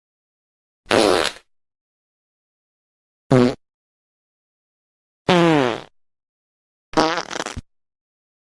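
Four short fart sounds, one after another, with silence between them. Most slide down in pitch; the last is longer and sputters unevenly.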